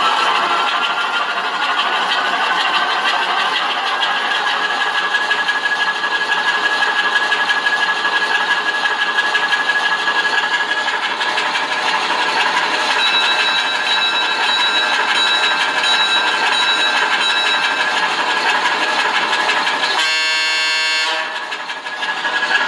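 Sound decoder playing a recorded Alco 539T six-cylinder diesel switcher engine through a small loudspeaker. The engine revs up over the first few seconds, then runs steadily at speed. A short horn blast sounds near the end.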